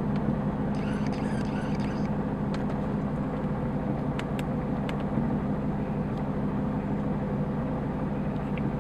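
Ford Mustang engine running steadily, heard from inside the cabin as an even low hum, with a few faint ticks.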